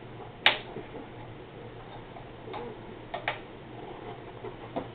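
Plastic K'nex construction pieces clicking as they are snapped together: scattered sharp clicks, the loudest about half a second in, a few more around the three-second mark and one near the end.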